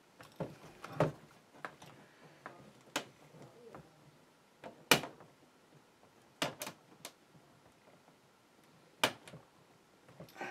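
Scattered sharp clicks and knocks of hard objects being handled, about eight in all, the loudest about five seconds in.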